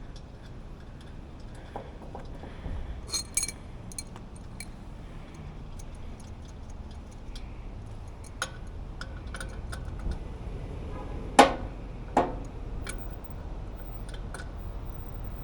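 Hand tools and metal parts clinking and tapping during work on a blower motor, with two louder knocks about three quarters of the way through, over a low steady hum.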